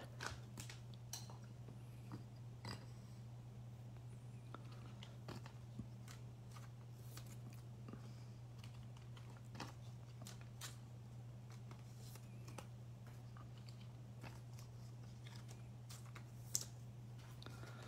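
Faint clicks and rustles of trading cards and plastic card holders being handled and set down on a table, with one sharper click near the end, over a steady low hum.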